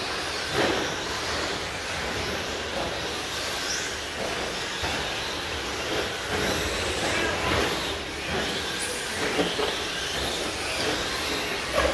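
Radio-controlled short course trucks racing on the track, a steady mix of motor whine and tyre noise with a few louder moments as trucks pass.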